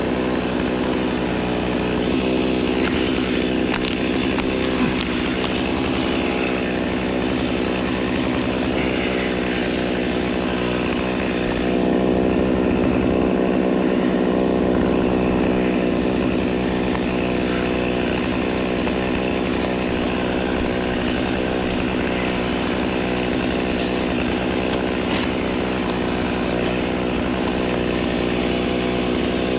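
Stihl two-stroke chainsaw running at a steady high speed, cutting through a section of palm trunk, a little louder about halfway through.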